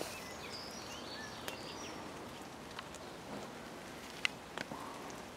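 Light rain falling on garden foliage, a steady soft hiss, with faint bird chirps in the first second and a half and a few small ticks.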